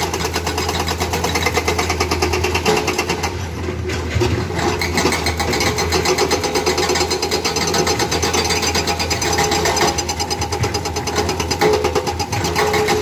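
Excavator-mounted hydraulic breaker hammering rapidly and continuously, over the steady run of the Komatsu excavator's diesel engine.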